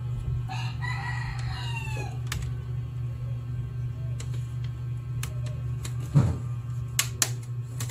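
A rooster crows once, one call of about a second and a half that drops in pitch at the end, over a steady low hum. Later come sharp clicks and a knock from the laptop's plastic bottom cover being handled and pried, the knock the loudest sound.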